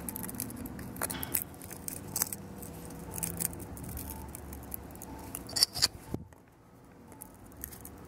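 Light handling noise: scattered small clicks and rustles as fingers press CAT5 wires into the plastic slots of an RJ45 punch-down jack, with a few sharper clicks spread through it.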